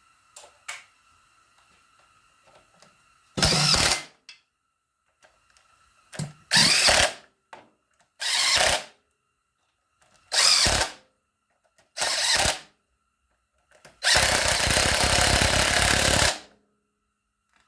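Power drill run in short bursts while fastening a housing shut: five bursts of under a second each, then one longer run of about two seconds near the end.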